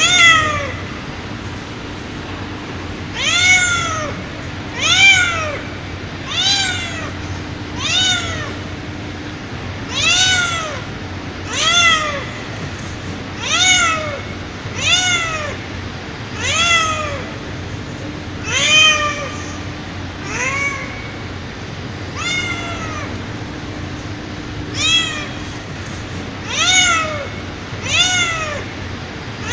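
Mother domestic cat calling her kittens: a long run of meows, one every second or two, each call rising and then falling in pitch.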